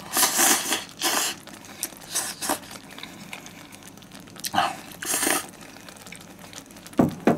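A person slurping thin ramen noodles from a hotpot, several short noisy slurps with pauses between them.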